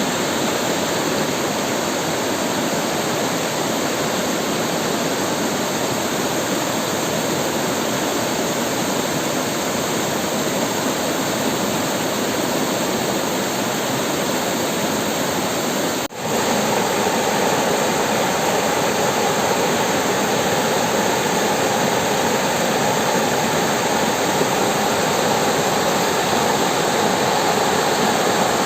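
River water rushing steadily over rocks. About sixteen seconds in, the sound drops out for a moment, and after it the rush is a little louder and fuller.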